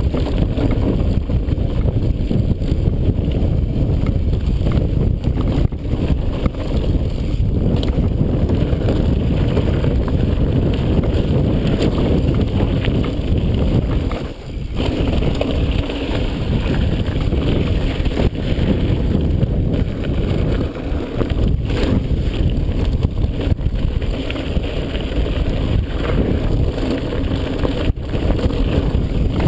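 Wind buffeting an action camera's microphone and mountain bike tyres rumbling over a dirt and gravel trail while riding downhill, with occasional knocks and rattles from the bike over bumps.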